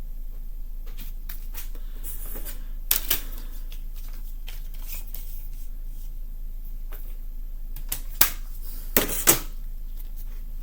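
Plastic CD jewel case and paper booklet being handled: a few sharp clicks and a short paper rustle as the booklet is taken out, over a steady low hum.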